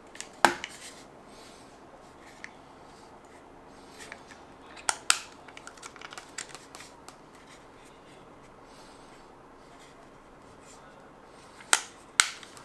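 Sharp clicks and light rattling as the parts of a toy gel ball blaster's magazine are pulled apart and handled. There is a loud snap about half a second in, a few clicks around five seconds, and two more loud clicks near the end.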